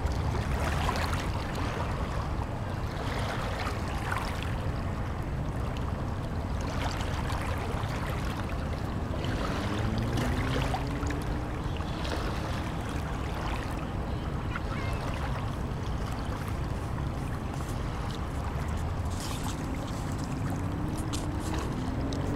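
Wind buffeting the microphone over lapping river water, a steady rumbling noise. A faint drawn-out rising tone comes in about ten seconds in.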